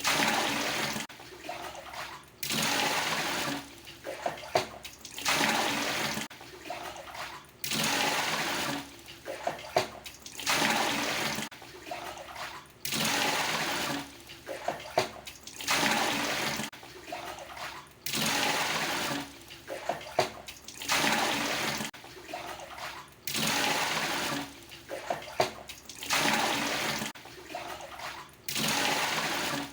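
Water scooped with a dipper from a traditional Indonesian bathroom water tub and poured out, over and over: about one pour every two and a half seconds, each lasting about a second, with small splashes and knocks of the dipper in between.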